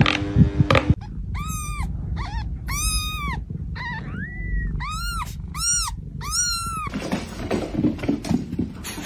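Newborn kitten crying: a string of about seven high, thin mews, each rising and falling in pitch. It starts after a loud noise cuts off about a second in, and lower rustling follows near the end.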